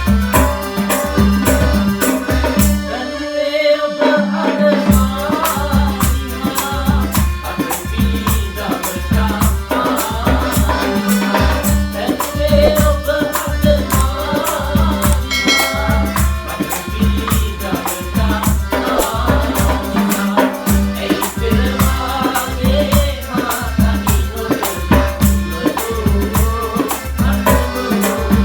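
Sinhala calypso-style band music with a steady percussion beat and bass; the bass and drums drop out briefly about three to four seconds in, then return.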